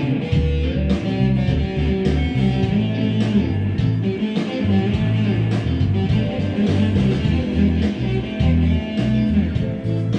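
Music: a guitar-led instrumental with a steady beat.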